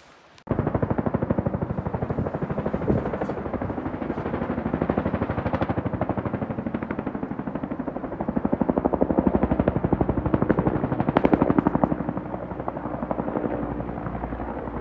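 Helicopter flying past, its rotor blades making a fast, steady chop that cuts in abruptly about half a second in and swells louder in the second half before easing a little.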